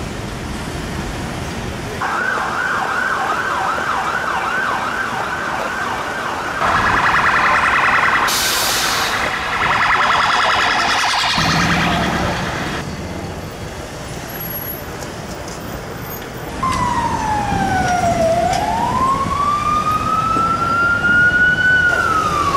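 Emergency vehicle sirens over street traffic: a fast yelping siren from about two seconds in, rapid warbling a few seconds later, and near the end a slow wailing siren that falls and then rises in pitch.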